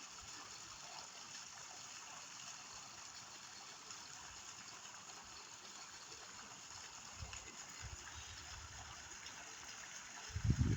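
Water trickling and running steadily, like a small stream. Near the end a loud low rumble breaks in, with a couple of faint low knocks shortly before it.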